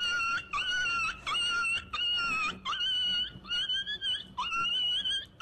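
A high-pitched wailing cry in a run of short, even calls with brief breaks between them, each call starting with a quick rise in pitch.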